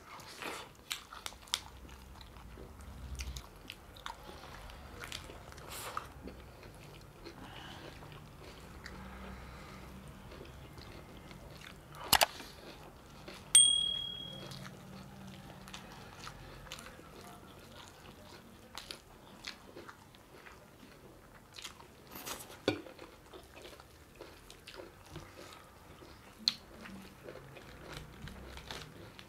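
Close-up eating sounds of mutton curry and rice: chewing, biting and wet mouth clicks. About halfway through come two louder sharp clinks, the second ringing briefly like a utensil or dish.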